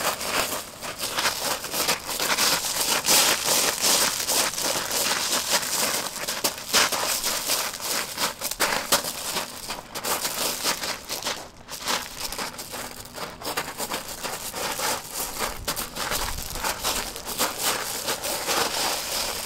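Rooftop gravel crunching and scraping under a dancer's feet as she steps, turns and slides. It is a dense, unbroken run of short crunches with one brief lull about halfway through.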